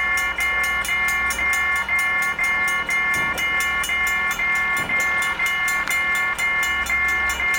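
Level-crossing warning bell ringing in a steady rapid rhythm of about two strokes a second, over the low rumble of a passing freight train.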